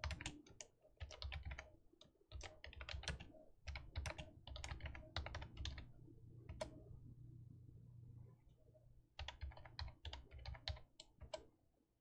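Keystrokes on a computer keyboard: runs of quick typing clicks, a pause of about two seconds, then another short fast burst of keys.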